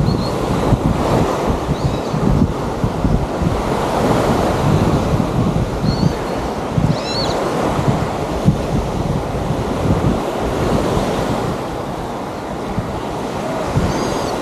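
Small waves washing onto a sandy beach, with wind gusting on the microphone. A few faint, brief high-pitched calls sound at scattered moments.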